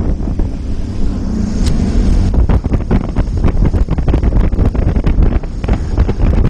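Jet boat running at speed through whitewater rapids, heard under heavy, choppy wind buffeting on the boat-mounted camera's microphone.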